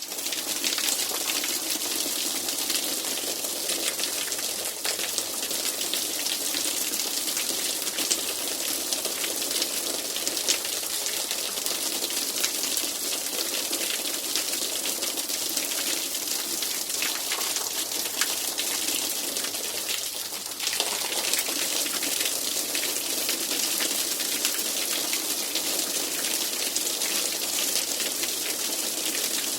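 Soft rain falling steadily: a dense, even hiss with many fine drop ticks, briefly dipping about twenty seconds in before carrying on.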